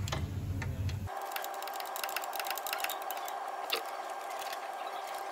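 Ratchet spanner clicking in quick, irregular runs as a suspension nut is tightened, over a steady faint hum.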